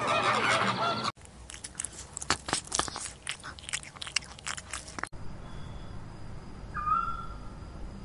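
A flock of flamingos honking and chattering together, cut off abruptly about a second in. Then kittens crunching dry food from bowls, a quick irregular run of clicks and crunches, which also cuts off; after that a quiet outdoor background with one short whistled call near the end.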